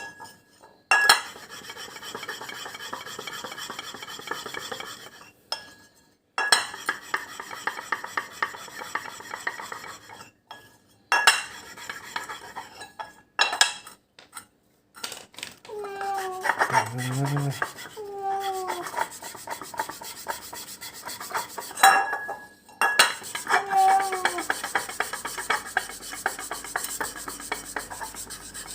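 Repeated scraping and rubbing, broken by several abrupt cuts, with a few short falling cries about halfway through and again a little later.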